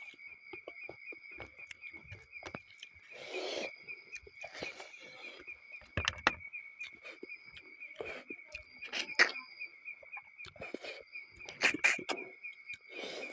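Close-up chewing of a mouthful of pork curry and rice, with sharp wet smacks and crunches scattered through. Under it runs the steady pulsing chirr of night insects.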